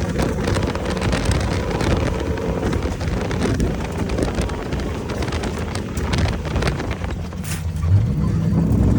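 Off-road race vehicle driving at speed, heard on board: wind buffeting the microphone over a low engine rumble, with the engine note coming through more clearly near the end.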